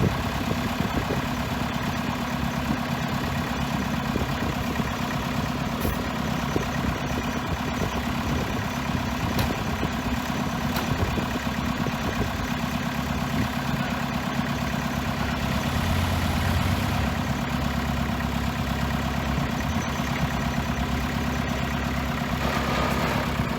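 Heavy diesel engine of earthmoving equipment running steadily at low revs, swelling briefly about two-thirds of the way through.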